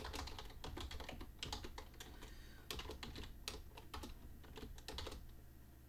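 Computer keyboard being typed on: faint, quick, irregular keystrokes, denser in the first second and thinning out toward the end.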